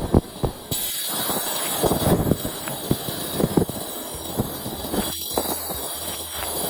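A run of irregular knocks and scraping clatter over a steady hiss.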